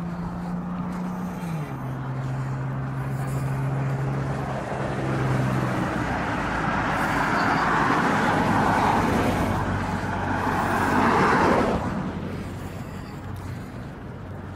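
Road traffic passing on the street alongside: a vehicle's engine note drops in pitch as it goes by about two seconds in. Then tyre and engine noise from another passing car builds, loudest about eleven seconds in, and falls away quickly.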